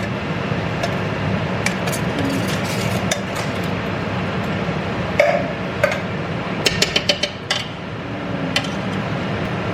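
Utensils and cookware clinking and knocking in a kitchen, a few scattered clinks with a quick cluster of them past the middle, over a steady background hum.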